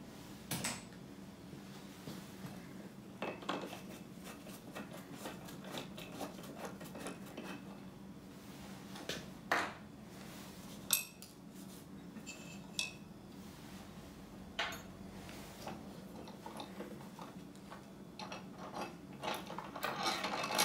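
Metal clicks and clinks of hand tools and the metal light-pod bracket being worked loose and handled, scattered and irregular, with two sharper clicks about halfway through and a busier run of clinks near the end.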